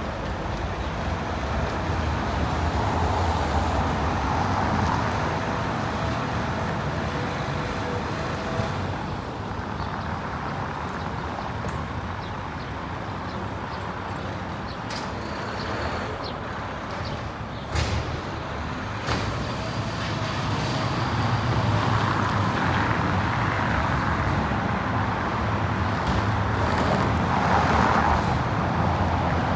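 Steady street traffic noise from cars on the road beside the pavement, swelling and fading slowly, with a few sharp clicks or knocks, the loudest about two-thirds of the way through.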